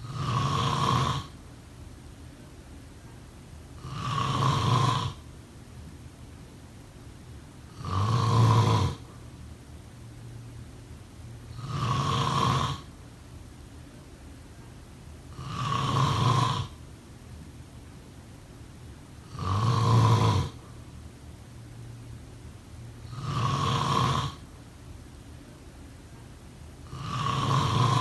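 A person snoring in a slow, regular rhythm: one snore about every four seconds, each lasting about a second, eight in all.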